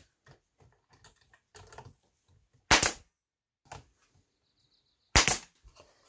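Nail gun firing twice, about two and a half seconds apart, driving nails through cedar plywood roof pieces into a wooden cleat, with light handling knocks between the shots.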